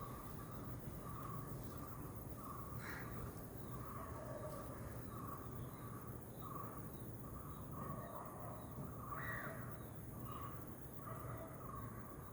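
Bird calling a steady series of short, same-pitched notes, a little more than one a second, while other birds give a few short, higher chirps.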